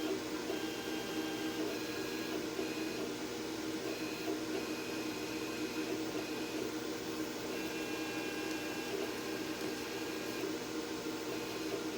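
Electronic cutting machine running, a steady motor hum with high whines that start and stop every second or so as the cutting head moves.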